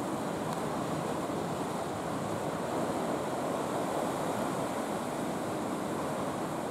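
Steady wash of choppy sea waves breaking against a breakwater, with some wind on the microphone.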